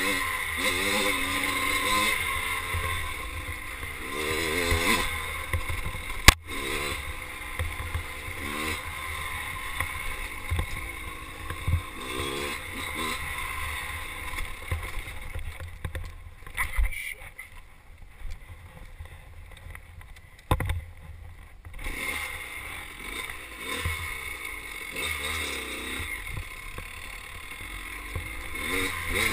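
Kawasaki KX dirt bike engine revving up and down as it is ridden along a trail, the pitch climbing and dropping with the throttle. It eases off to a low run for several seconds past the middle before picking up again, with a couple of sharp knocks along the way.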